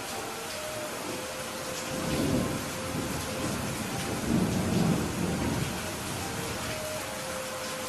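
Steady rain hissing, with low thunder rumbling twice, the second roll the louder and longer.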